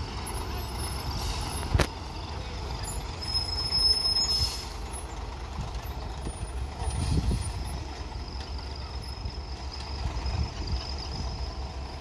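Loaded Hyundai dump truck's diesel engine rumbling steadily as the truck drives slowly past, with one sharp knock about two seconds in and a short hiss around four seconds.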